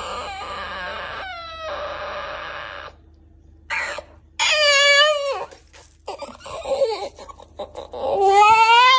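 French bulldog whining and crying while begging: a short falling whimper in the first couple of seconds, a loud wavering cry about halfway through, and another near the end that rises and then holds.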